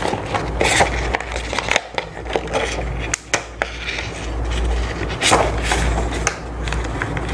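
A clear A4 plastic transparency sheet being worked off the pegs of a 3D-printed plastic face shield frame: the sheet crinkles and rustles, with many sharp clicks and taps of plastic on plastic.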